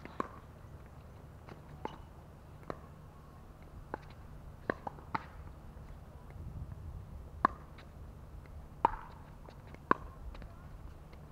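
Pickleball rally: sharp pops of paddles hitting the hollow plastic ball, about ten in irregular succession, the loudest near the end.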